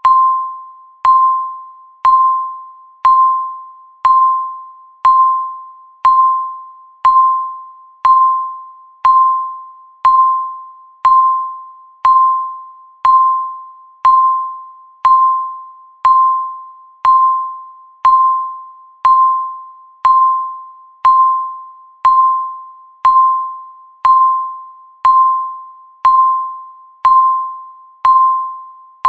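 Countdown timer beeping once a second: a single mid-pitched tone that starts sharply and fades away before the next beep.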